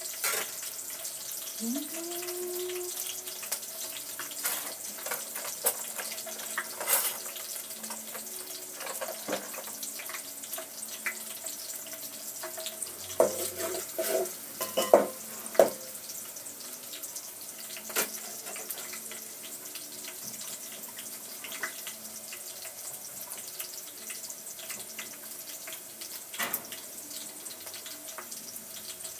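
Pot of matoke cooking on the stove with a steady hiss, with scattered clicks and knocks of utensils, the loudest cluster about halfway through.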